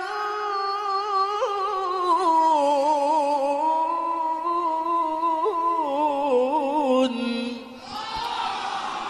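A male qari reciting the Qur'an in melodic tilawah style, holding one long ornamented phrase whose pitch slowly sinks and which ends about seven seconds in. A brief spell of diffuse noise follows near the end.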